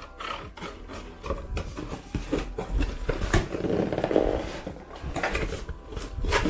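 Cardboard shipping box and tissue paper handled by hand: irregular rustling, scraping and small taps, busiest around the middle.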